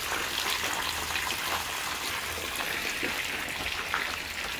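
Spring water running and splashing steadily, a continuous trickling hiss with small drips and splashes, from the Kōyama sacred spring.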